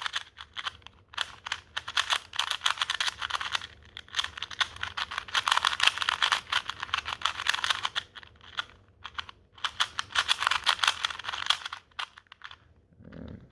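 KungFu 2x2 speed cube being turned rapidly, its plastic pieces clicking and scratching in three long runs of quick turns with a few single clicks between them. It is a new cube that still feels sandy and scratchy while it breaks in.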